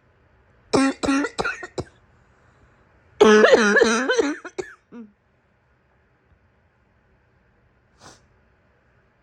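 A sick woman's coughing fit: a quick run of about five short coughs, then a longer hoarse, pitched barking cough about three seconds in. A faint short breath comes near the end.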